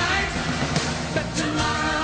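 Recorded pop song playing: a full band with sung voices over it.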